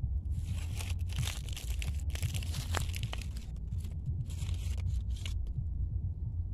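Irregular rustling and crunching close to the microphone over a steady low rumble. The crackling is busiest from about half a second in and dies down near the end.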